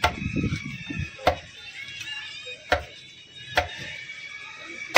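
Large fish-cutting knife chopping through a tuna's flesh and bone into a wooden block: five sharp chops about a second apart, the last the loudest.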